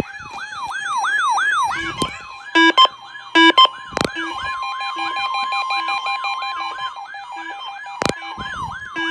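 Weather-radio alert alarm sounding for a NOAA Weather Radio weekly test: a siren-like falling sweep repeating about three times a second. A steady alert tone joins about three and a half seconds in. There are a few short loud bursts just before it and sharp clicks about four and eight seconds in.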